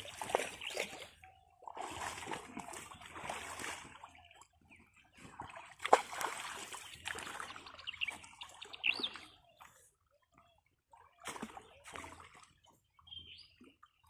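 Water splashing and sloshing in irregular bursts, with short quiet gaps between them.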